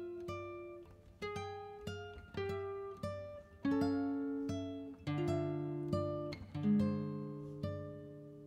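Background music: a plucked acoustic guitar playing single notes and chords, each struck sharply and ringing out as it fades.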